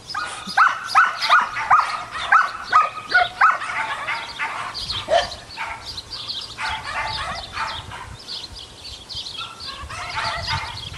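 Several dogs barking and yipping at each other between two neighbouring yards, the evening back-and-forth that the breeder calls the dogs talking. A quick run of sharp barks, about two or three a second, fills the first few seconds, then it eases into lighter overlapping yapping.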